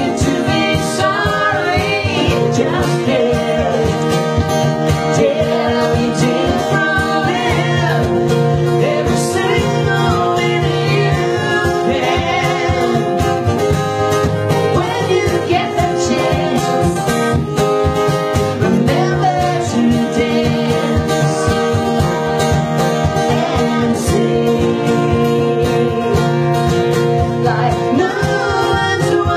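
A woman singing live into a handheld microphone, accompanied by an acoustic guitar, in a country style.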